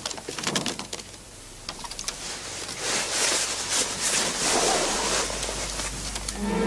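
A mouse scratching and scrabbling behind wallpaper: a run of quick small clicks and scrapes. Music begins right at the end.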